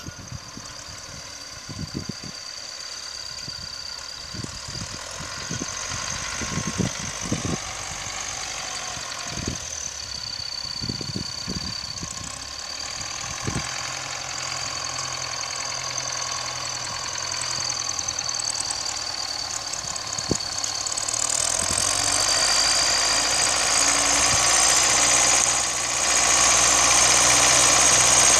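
MTZ-82 tractor's four-cylinder diesel engine running as it pulls a cultivator through tilled soil, growing steadily louder as it approaches. A few low thumps come in the first half.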